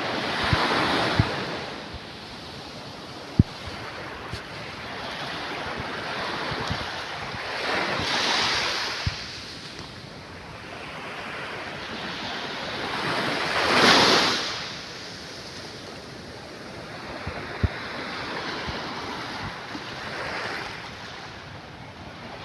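Ocean waves breaking and washing in, swelling in surges every six seconds or so, the loudest about fourteen seconds in. Wind rushes on the microphone throughout, with a few short low knocks.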